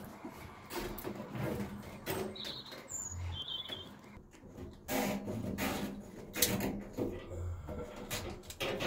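Handling noise: scattered clicks, rustles and light knocks as plastic cable ties, electrical cable and a clear reinforced plastic hose are handled and laid in place.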